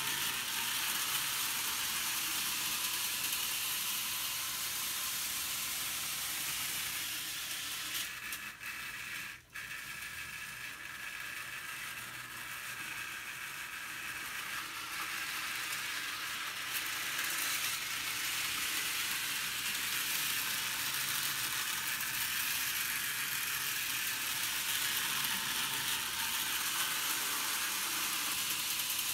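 HO-scale Thomas model locomotive running around the track with its train of freight cars: a steady whirring rattle of the small motor and the wheels on the rails. The sound cuts out briefly about nine seconds in.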